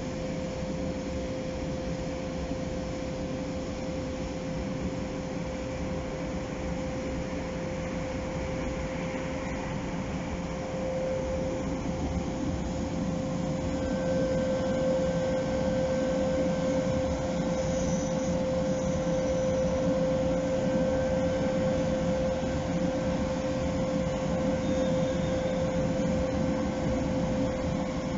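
Electric trains humming in a station: a steady electrical tone over a low mechanical rumble, growing louder about halfway through as an SNCB Class 13 electric locomotive pulls in slowly and draws close.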